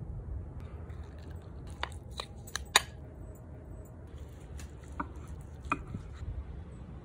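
Sharp clinks of a metal spoon and small glass dish against a glass mixing bowl as chimichurri is seasoned and stirred, a cluster of four about two seconds in, the loudest near three seconds, and two more later, over a low steady hum.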